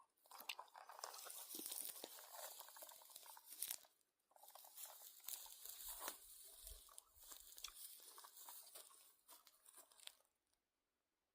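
Near silence with faint, scattered crunching and rustling handling noises and a few small clicks.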